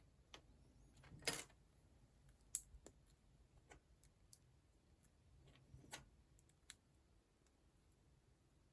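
Small plastic building-block pieces clicking and tapping as they are handled and pressed together: a handful of scattered light clicks, the loudest about a second in.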